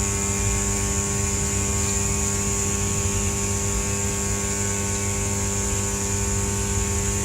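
Rewound microwave oven transformer humming steadily under a dead short, its secondary driving heavy current through a 17 mm galvanised steel spanner and heating it red hot. A steady electrical hum with a thin high whine above it.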